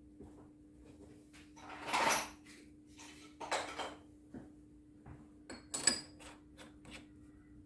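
Scattered clicks, scrapes and light clatter of hard parts being handled, with a louder scraping noise about two seconds in, another at three and a half seconds, and a sharp clatter near six seconds.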